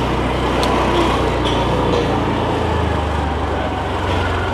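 A steady low engine hum under street noise; the hum shifts about two and a half seconds in.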